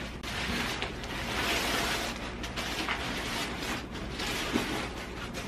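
Nylon fabric of a folded pop-up tent rustling in irregular swells as it is pressed down and stuffed into its carrying bag.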